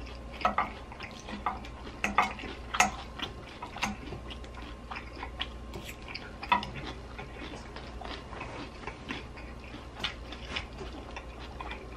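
Close-up eating sounds: a metal fork clinking and scraping in a glass salad bowl, then chewing of salad, heard as scattered irregular sharp clicks over a steady low hum.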